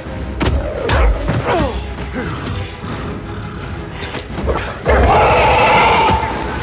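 Action-film soundtrack mix: music under a run of thuds and crashes. A louder, sustained noise comes in sharply about five seconds in and holds for over a second.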